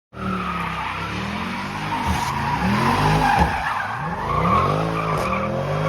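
A car engine revving up and down several times while tyres squeal.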